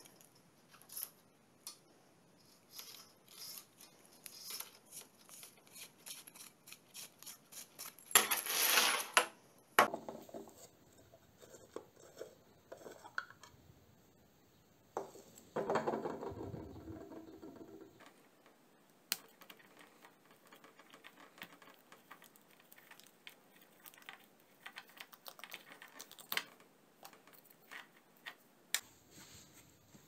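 Hard plastic and chrome parts of a hand-held shower head clicking, tapping and scraping as they are handled and taken apart on a wooden table, with two longer bursts of rattling and scraping partway through.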